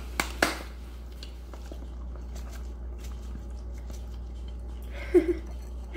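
Two sharp clicks near the start, then the faint, soft patter of grated Parmesan being shaken from a cardboard shaker can onto a bowl of pasta. A brief voice sound comes about five seconds in.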